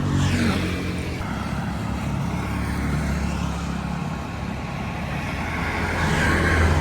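Road traffic: motor vehicles running and passing close by. One passes right at the start, its pitch falling, and another grows louder near the end.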